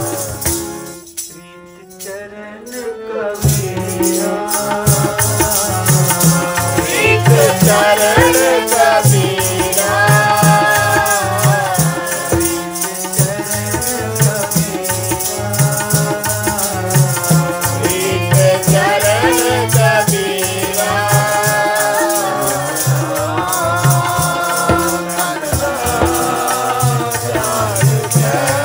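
Sikh kirtan: voices singing a Gurbani hymn over harmonium, with a steady hand-drum beat and continuous metallic jingling. The music drops away briefly near the start, then the beat and the sung phrases come back in.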